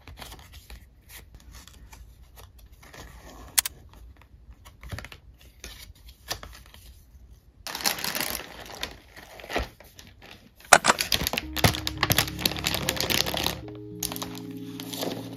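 Paper envelopes and cards handled with soft rustles and ticks, then a loud rustle of a cloth mat being spread out about eight seconds in. From about eleven seconds, packaged sweets are set down with sharp knocks and crinkling, and gentle music with held notes starts underneath.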